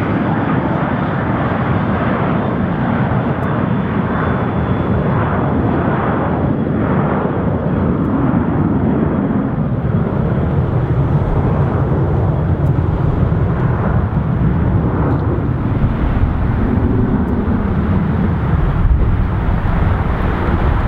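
Twin-engine Airbus A320-family airliner at takeoff thrust during its takeoff roll and rotation: a steady, loud jet rush that grows a little louder and deeper in the second half as the aircraft comes nearer.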